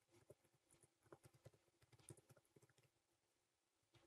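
Faint computer keyboard typing: a quick, uneven run of key clicks for about two and a half seconds, then a pause.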